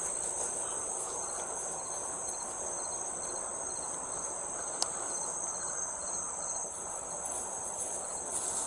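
A chorus of night insects trilling steadily at a high pitch, over a low, even background hiss.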